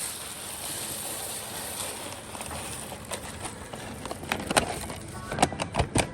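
Light clicks and rattles of grains and hard parts being handled at a coffee grinder's hopper, over a steady background hiss; the clicks start about three seconds in and come thicker and sharper near the end.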